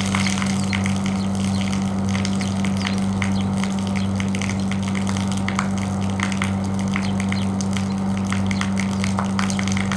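Electric water pump running with a steady hum while a hose sprays water onto a window air conditioner, with scattered splashing and spattering of water against the unit and wall.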